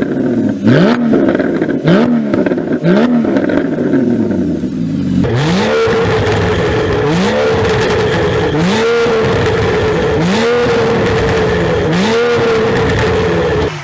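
Car engine blipped repeatedly, about once a second, with exhaust pops and crackles as each rev drops back. About five seconds in it changes to an engine revved more slowly, roughly every second and a half, over a steady droning tone.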